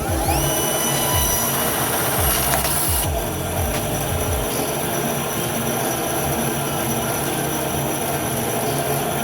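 Power saw spinning up with a rising whine, then a steady high-pitched screech and hiss as the blade cuts through a canvas-and-rubber sneaker.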